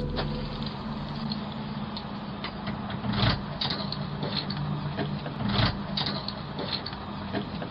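Outdoor background noise picked up by a doorbell camera's microphone: a steady low engine-like hum under hiss, with scattered knocks, the two loudest about three seconds and five and a half seconds in.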